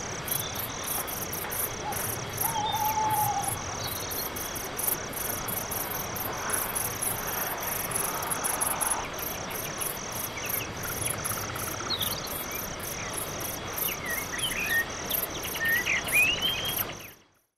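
Crickets chirping in an even pulse, about three chirps a second, with a few short, rising bird calls near the end. The sound cuts off abruptly just before the end.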